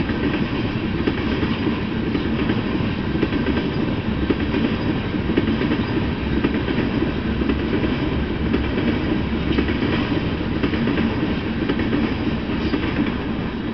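Freight train of tank cars rolling past: a steady rumble of steel wheels on the rails with light clicking, fading slightly near the end.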